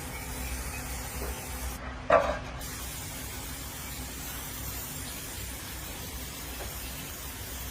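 Steady hiss of spraying, with one short loud knock about two seconds in.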